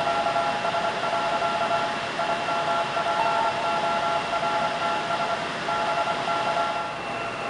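Morse code (CW) signals sounding as several high tones at different pitches, keyed on and off in irregular dots and dashes over a steady hiss; the keying stops shortly before the end and the hiss continues.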